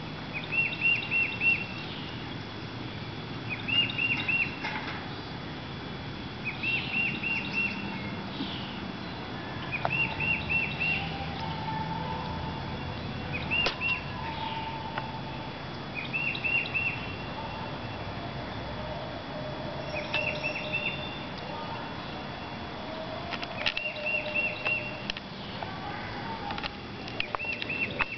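A songbird singing the same short phrase over and over: four or five quick, high, arched notes about every three to four seconds, with fainter lower calls from other birds in between.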